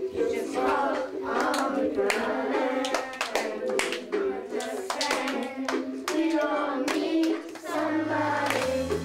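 Children singing a song together while clapping their hands in a steady rhythm.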